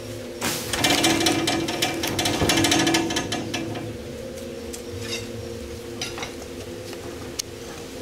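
Trailer-mounted band sawmill running with a steady hum, and a loud stretch of rattling and clatter from about half a second to about three seconds in as a coconut-trunk log goes through the saw.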